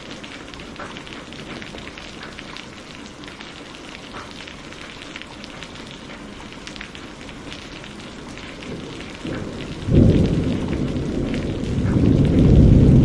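Steady rain hissing with distinct drops striking, then about ten seconds in a sudden loud thunderclap breaks into a deep rolling rumble that swells again near the end.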